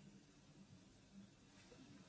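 Near silence: faint room tone, with a soft, barely audible sound of a spoon scooping into the soft cream of a tiramisu in a glass about one and a half seconds in.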